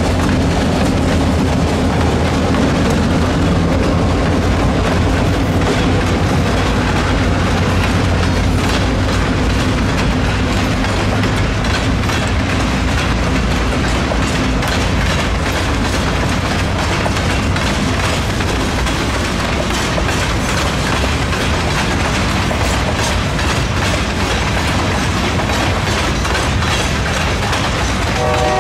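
Diesel locomotives running past with a steady low engine drone that fades over the first dozen seconds. Loaded rock hopper cars follow, rolling by with their steel wheels clicking over the rail joints.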